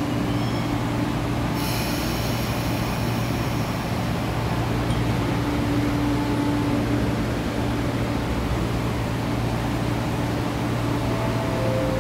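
Electric commuter train at a station platform, its equipment humming steadily. A burst of hissing comes about a second and a half in, and a short whine sounds near the end as the train pulls away.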